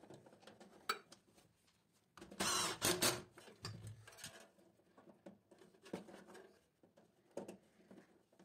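Insulated electrical wire being handled and pressed into slotted plastic wire duct: scattered light clicks and rustles, with a louder scraping rush lasting about a second just after two seconds in.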